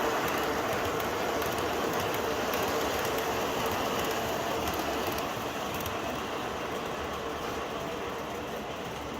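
MTH O-gauge R-40 Slant model subway train running along the track. Its rolling and motor sound, with the set's subway sound effects, grows slowly quieter through the stretch.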